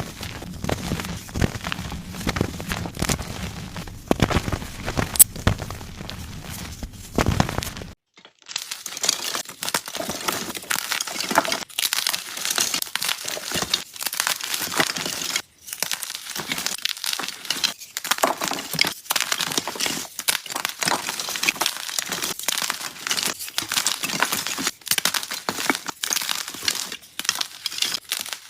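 Soft gym chalk being crushed and crumbling in a dense run of crackling crunches. About eight seconds in the sound cuts to a different batch, with crisper, brighter crumbling and less low thud.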